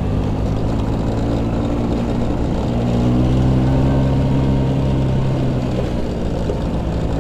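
Vespa PS 150 scooter's two-stroke single-cylinder engine running under way. Its note rises a little about three seconds in, holds, and eases back near six seconds.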